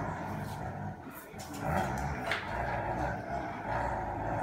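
Dobermans play-growling while tugging at a toy, a long, low rumbling growl that breaks off briefly about a second in and then carries on.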